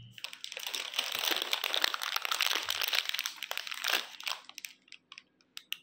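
Plastic snack packet crinkling as it is handled. The crinkle dies away about four seconds in, followed by a few faint clicks.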